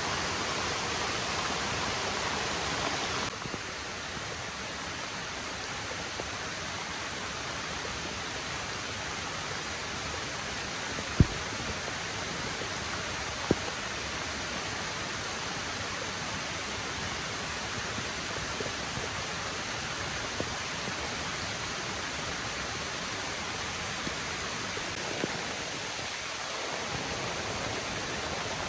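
Steady rush of heavy rain and falling water, turning duller about three seconds in. A few sharp knocks stand out over it, the loudest about eleven and thirteen seconds in.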